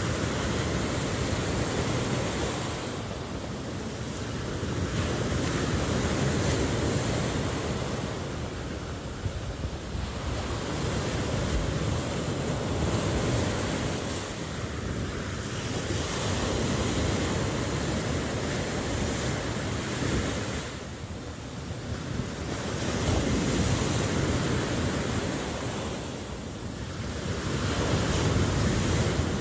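Ocean surf: waves breaking and washing up the shore in a continuous rush that swells and eases in slow cycles about every five to six seconds.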